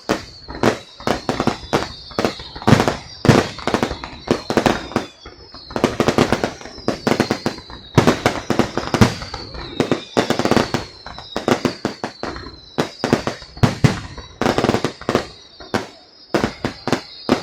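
Fireworks display: aerial shells going off in rapid, irregular bangs, often several a second, with a run of high whistles that fall in pitch.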